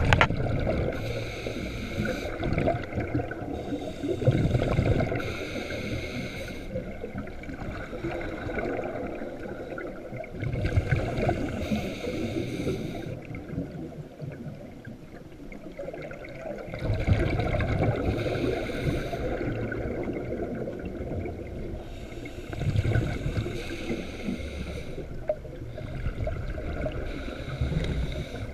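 Muffled underwater sound of moving water and bubbling, heard through a camera housing, swelling into louder surges about every five or six seconds over a steady wash.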